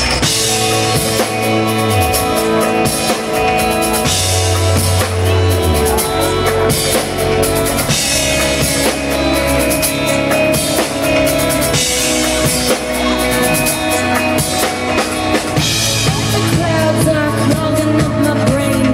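Live pop band playing through a stage PA: drum kit, electric guitar and keyboard, with a cymbal crash about every four seconds.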